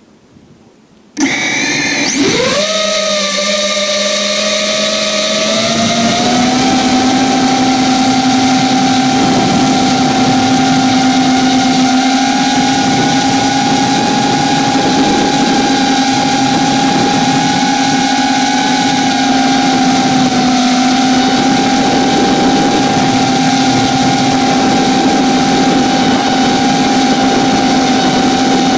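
FPV quadcopter's brushless motors and propellers, close to the onboard camera's microphone. About a second in they start suddenly with a quick rising whine as the quad lifts off, then settle into a steady whine in flight that steps slightly higher a few seconds later.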